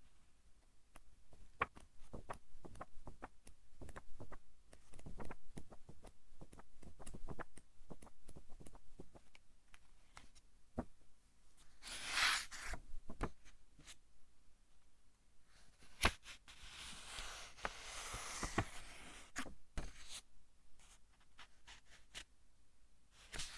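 Pages of a thick-paper book being turned by hand: a run of small paper crackles and taps, with three longer swishing rustles of a page sweeping over, the longest in the second half.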